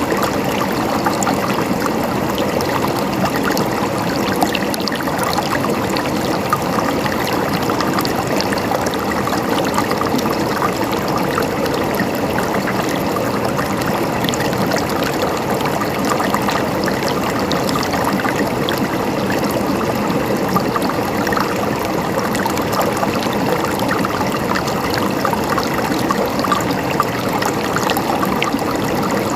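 Running water babbling and splashing steadily, many small splashes over an even rush.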